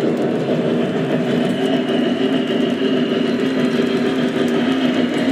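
O gauge model freight cars rolling past on three-rail track: a steady rumble of metal wheels on the rails.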